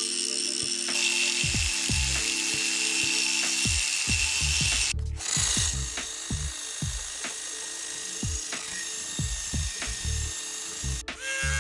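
Angle grinder running against the steel jaw of an old vise, throwing sparks, as it is cleaned of rust and grime. About five seconds in it cuts to a cordless drill spinning a wire brush wheel over the cast-iron vise body. Background music with a steady beat plays underneath.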